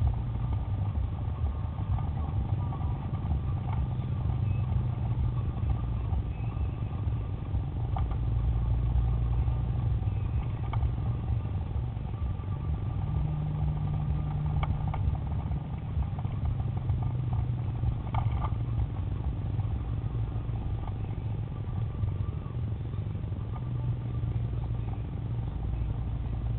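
Car engine and tyre noise heard from inside a moving car: a steady low drone whose engine note rises for a few seconds about halfway through. A few faint ticks sound now and then.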